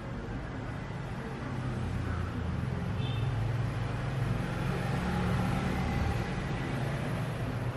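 Low, steady background rumble of road traffic that swells about halfway through, like a vehicle passing.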